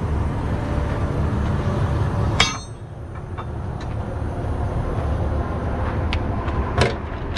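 Heavy-duty tow truck running while its hydraulic underlift is worked, a steady low rumble. A sharp metal clank about two and a half seconds in, after which the rumble drops and builds back up, then a few light metallic clinks near the end.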